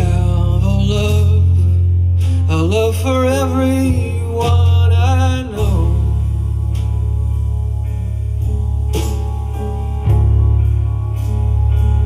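A recorded song played back through a vintage Frazier Super Texan horn loudspeaker with original alnico drivers, picked up by a camera's built-in microphone. A singing voice runs over a steady bass line until about halfway through, then the instruments carry on alone.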